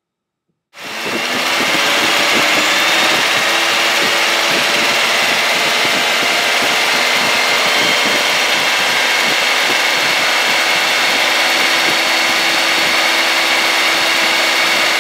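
Car engine running steadily at a raised speed of about 2000 RPM, with the headlights and rear defroster on to load the alternator fully for an AC ripple test of its rectifier bridge. The sound cuts in abruptly under a second in.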